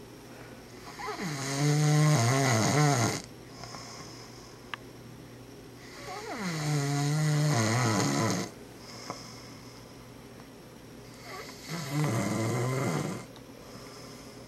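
A sleeping man snoring: three long, loud snores about five seconds apart, each lasting two to three seconds, with softer breathing between.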